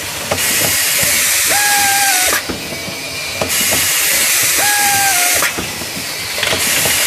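Automatic linear capping machine at work: a loud, steady air hiss that drops away for about a second twice. Just before each drop comes a short whine from the capping head, sliding slightly down in pitch as it screws a cap onto a bottle, with light clicks of the mechanism throughout.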